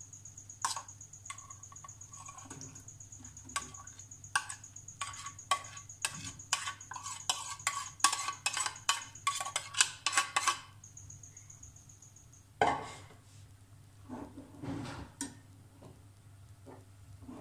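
Metal spoon clinking and scraping against a steel pan and a plastic bowl as a wet vegetable mixture is scraped into the pan: scattered clinks at first, growing into a quick run of clinks that stops about ten seconds in. A couple of softer knocks follow near the end.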